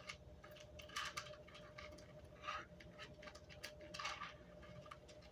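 Light, scattered clicks and taps of small plastic parts and screws being handled while the fishfinder's housing is put back together, over a faint steady hum.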